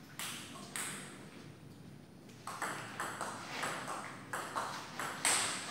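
Table tennis ball clicking off the paddles and bouncing on the table: two sharp ticks in the first second, then a fast rally of ticks, about three or four a second, from about two and a half seconds in.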